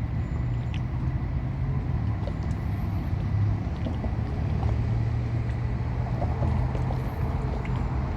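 Steady low mechanical rumble with a faint high whine above it, and a couple of faint high chirps about two and a half seconds in and near the end.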